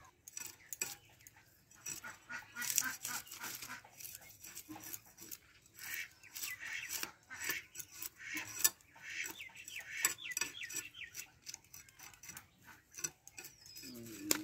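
Fish scales being scraped off against a boti's iron blade: a quick, irregular run of short rasping strokes.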